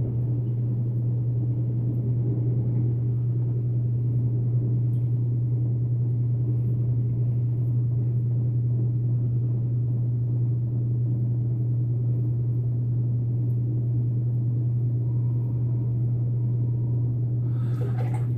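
A steady low hum that does not change, with faint scraping of a safety razor being drawn over a lathered cheek.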